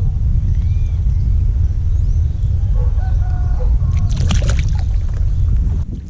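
Steady low rumble of wind on the microphone, with a short pitched call about three seconds in and a quick cluster of sharp clicks and splashes about a second later.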